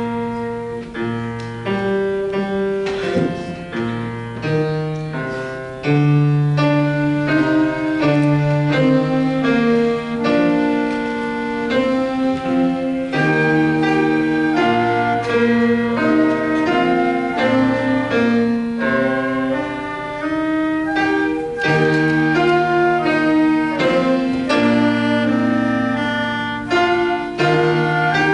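A small school band ensemble playing a slow, peaceful piece with piano accompaniment, in long held notes over soft chords.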